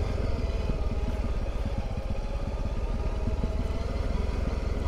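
Honda CRF300 Rally's single-cylinder engine running steadily as the motorcycle rides along a dirt road.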